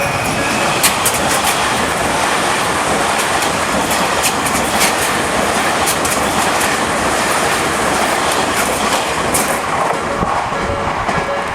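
Electric commuter train passing over a level crossing, its wheels clacking over the rail joints. The train drowns out most of the crossing's slow-tempo warning bell, which comes through again near the end.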